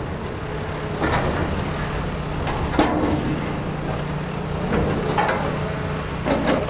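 Demolition excavator engine running steadily, with several scrapes and clanks of corrugated steel sheeting being pulled and dropped.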